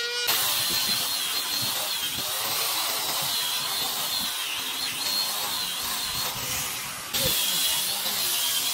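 A power tool running steadily with a hissing noise and a high whine that wavers slightly; it breaks off abruptly and resumes a little louder about seven seconds in.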